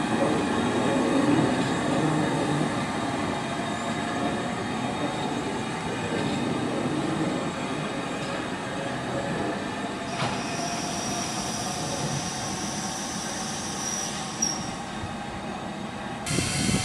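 LMS Stanier Class 5 4-6-0 steam locomotive rolling slowly round a curve, its wheels rumbling on the rails with flange squeal; a high squeal stands out about ten seconds in for a few seconds. Just before the end a sudden hiss of steam starts from the cylinder drain cocks.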